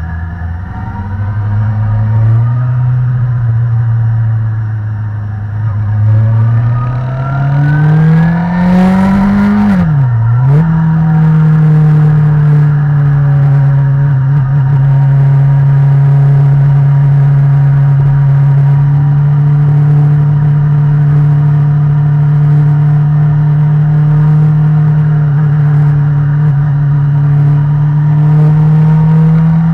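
Sport motorcycle engine pulling up through second gear, rising in pitch as it revs out, then a quick upshift to third about ten seconds in, after which it runs at a steady cruise.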